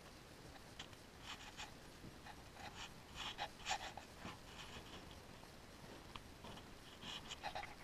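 Faint scratchy rustles and light ticks in scattered short clusters, the loudest about three and a half seconds in, over a quiet room background.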